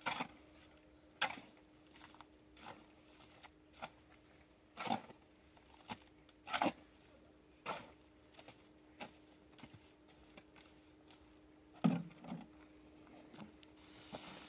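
Scattered short knocks and clicks at irregular intervals, a dozen or so, over a faint steady hum.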